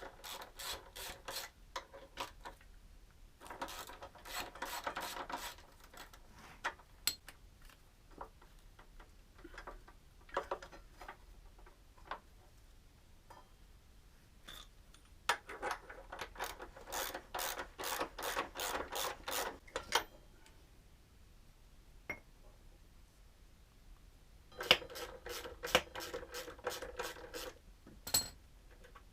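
Ratchet socket wrench clicking in several quick runs, with scattered knocks and clicks of metal parts being handled, as the front axle and its bolts are undone.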